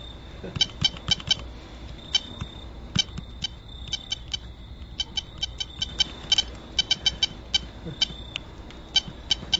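Rapid, irregular clicking of BlackBerry keys as thumbs type on the phone's keyboard, sometimes several clicks in quick succession, sometimes a short pause between them.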